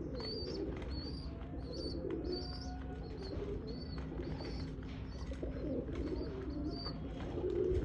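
Domestic pigeons cooing in low, wavering calls, with short high chirps repeating about twice a second over a steady low hum.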